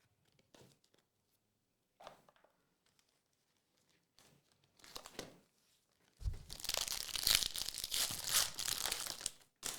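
Faint rustles of cards being handled, then from about six seconds in a loud crackling tear lasting about three seconds as a foil trading-card pack wrapper is ripped open and crinkled.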